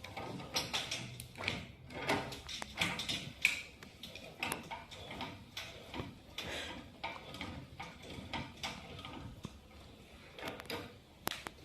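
Irregular knocks, clicks and rustling of objects and bedding being handled as the patient is helped into a half-sitting position.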